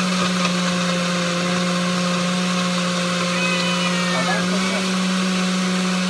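Countertop blender running loud and steady, blending frozen berries, banana and milk into a smoothie. A child's high voice rises briefly over it a little past the middle.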